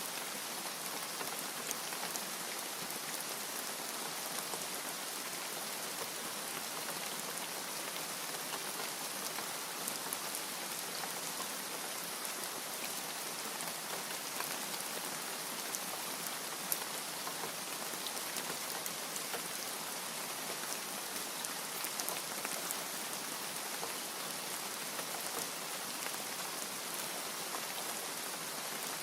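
Steady rain falling, an even hiss with many small drops ticking on a surface.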